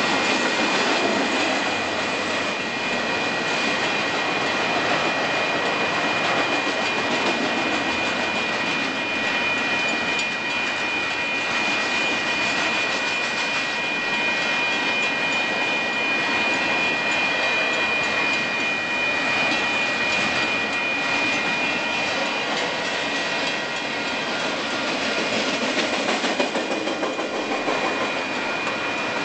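Union Pacific double-stack container train's loaded well cars rolling past: a steady rumble and rattle of wheels on the rails. A steady high whine runs with it and fades out about two-thirds of the way through.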